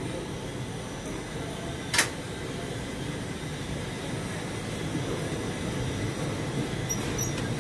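Steady rumble of an express passenger train's coaches rolling past as the train pulls out of the station, growing slightly louder toward the end. A single sharp click sounds about two seconds in.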